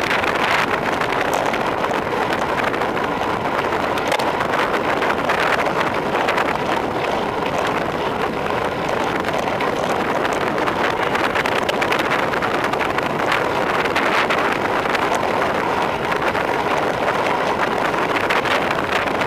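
Steady wind rushing over a handlebar-mounted camera's microphone as a road bike descends at speed.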